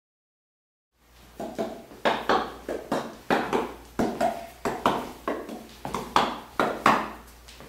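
A quick, uneven series of hollow knocks, about three a second, each with a short ring. They start about a second in and fade out near the end.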